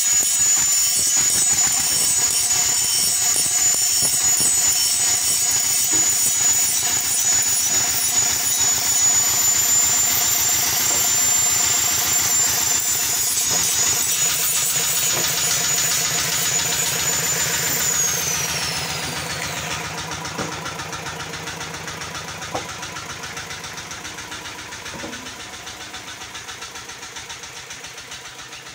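Stationary single-cylinder diesel engine running with a steady chug. A high whine over it winds down about eighteen seconds in, and the engine then grows gradually fainter.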